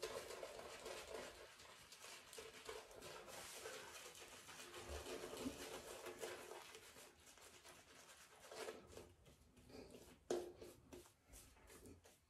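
A shaving brush swirling and scrubbing lather over stubbly cheeks and neck: a faint, continuous wet, bristly swishing, with a few small clicks near the end.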